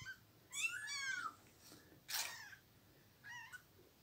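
Young kittens mewing faintly: three high-pitched mews, a longer one about half a second in, then shorter ones about two and three seconds in.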